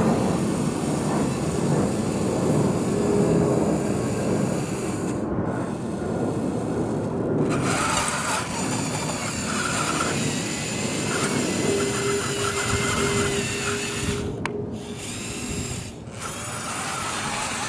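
Small geared electric motors of a radio-controlled toy wheel loader whirring as it drives over gravel and pushes its bucket into a pile, with a thin whine coming in for a few seconds midway.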